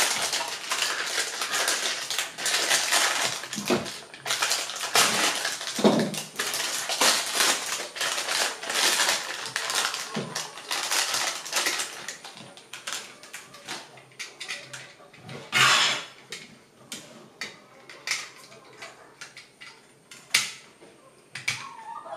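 Clear plastic wrapper crinkling and rustling as it is pulled off a polycarbonate twin socket, dense for the first half. Then sparser clicks and taps of the plastic socket being handled, with one louder crinkle about two-thirds of the way through.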